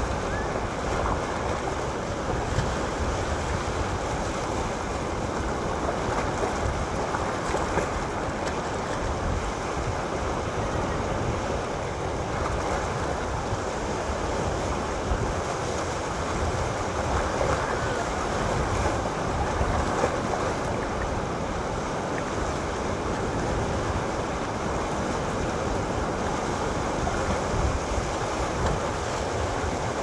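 Sea waves washing and splashing against low rocks at the shoreline: a steady surf hiss over a low rumble, with no single crash standing out.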